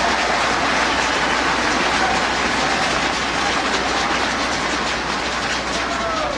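Large arena crowd cheering and banging inflatable thundersticks in a steady clattering roar, in response to a strike; it eases off slightly toward the end.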